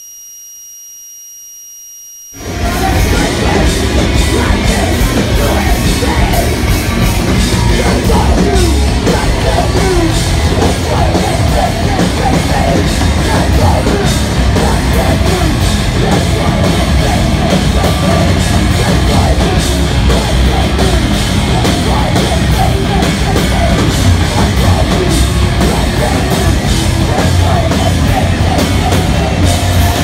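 Live heavy rock band playing loud, with distorted guitar, drums and vocals, recorded from the crowd. It cuts in abruptly about two seconds in, after a faint steady hum.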